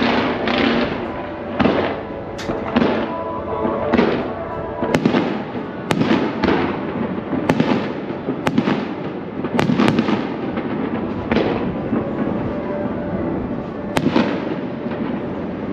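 Fireworks bursting overhead in a quick series of sharp bangs, about one a second, each trailing off in an echo.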